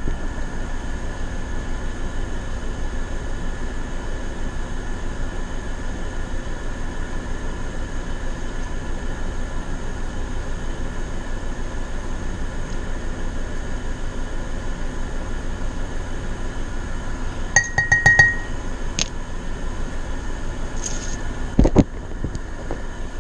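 Steady hum of room air conditioners, with a few light metallic clinks and a brief ring about eighteen seconds in, then a single knock near the end.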